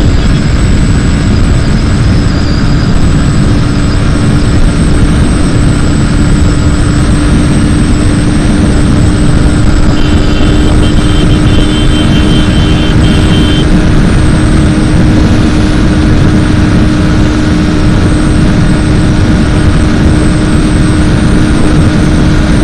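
Bajaj Pulsar NS125 single-cylinder engine running at a steady high speed of about 105 km/h, its pitch holding even, heard from the rider's seat under heavy wind rumble on the microphone.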